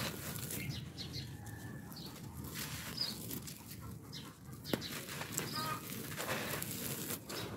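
Dry pressed red-dirt slabs crushed between the hands, giving a gritty crunching with loose soil trickling and pattering down, and one sharp crack a little under five seconds in. A few short bird calls are heard behind it.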